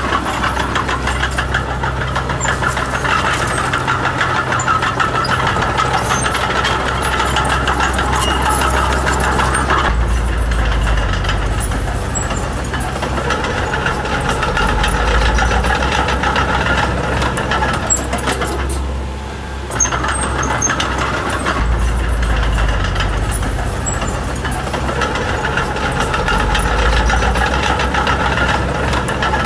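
Diesel engine of a Komatsu D20P mini bulldozer running steadily as it works, its rumble swelling several times under load, with a brief lull about two-thirds of the way through.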